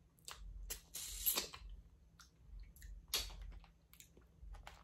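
Close-miked eating sounds: wet chewing and lip smacks on sauced shellfish, heard as a string of short irregular clicks. There is a longer squishy smear about a second in and another near three seconds.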